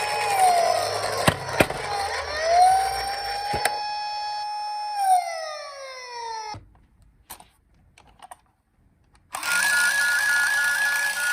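Electronic toy police car siren wailing, its pitch holding, falling and rising again, with a few sharp clicks; it winds down and stops about six and a half seconds in. After about three seconds of near silence, a fast two-note electronic warble starts near the end.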